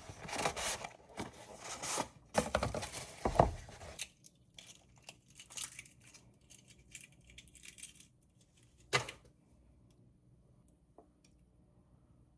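Close handling noises: rustling and crinkling for the first few seconds, then lighter scattered clicks, and one sharp knock about nine seconds in.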